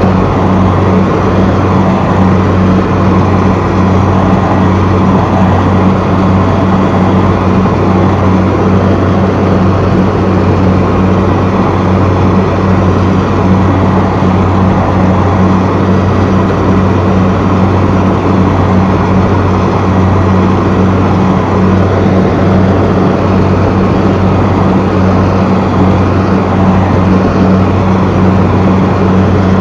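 Kubota DC70 rice combine harvester's diesel engine running steadily under load as the machine cuts and threshes rice, heard loud from the operator's seat: an unbroken low drone over dense machine noise.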